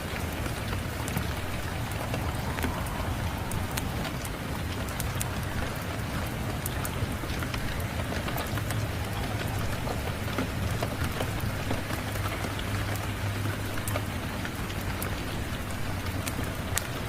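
Steady rain mixed with a wood fire crackling in a fireplace, with scattered sharp pops over a low steady rumble.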